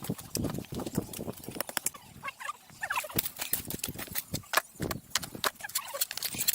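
A run of irregular knocks and clicks, with a few short faint chirps between them.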